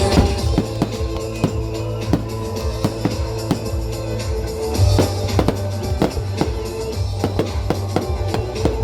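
Music with a steady drum beat, about two hits a second, over held bass notes.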